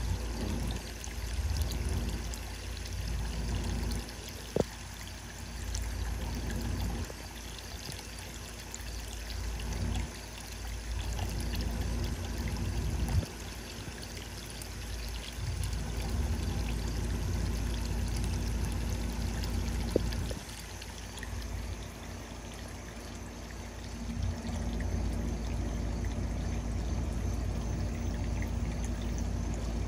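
Water pouring and trickling steadily into a small garden pond, under a low rumble that swells and drops every few seconds, with two sharp clicks about five seconds and twenty seconds in.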